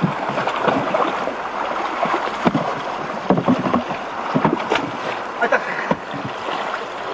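Rain and splashing water, with irregular knocks and clatter throughout.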